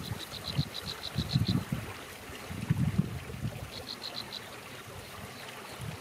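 Wind buffeting the microphone in irregular low gusts. Over it comes a high, rapid ticking trill of about seven even ticks a second: once for about a second and a half at the start, then again briefly about four seconds in.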